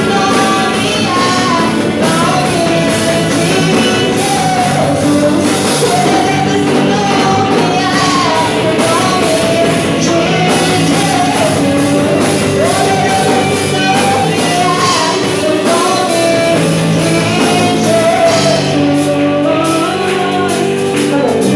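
Live worship band playing with a singer: a lead vocal carries the melody over sustained band chords, guitar and drums, in a large hall.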